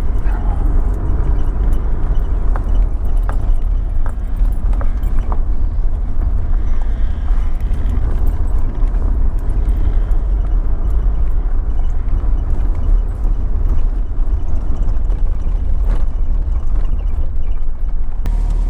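Vehicle driving: a steady low rumble of engine and road noise, with a few light knocks and bumps.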